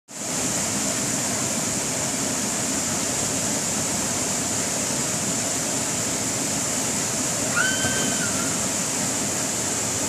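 Waterfall cascading into a pool: a steady rushing of falling water. A short whistle-like tone is heard about three-quarters of the way through.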